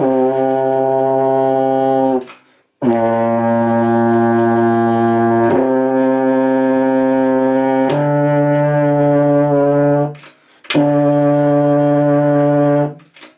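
Tenor horn played by a beginner: five long held notes at a few different pitches, each about two to three seconds. There are two short breath breaks, one after the first note and one near the end, while the player tries out valve fingerings.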